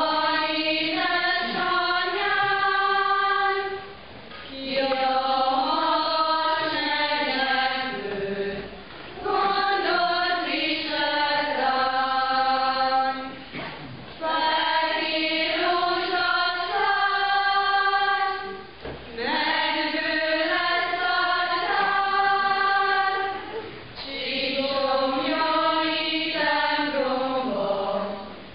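A church congregation singing together without accompaniment, in sung phrases of about four to five seconds with short pauses for breath between them.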